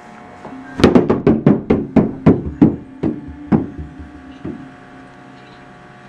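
Small rubber super ball bouncing down a carpeted staircase: a quick run of about a dozen knocks starting about a second in, spacing out and fading after the first few seconds.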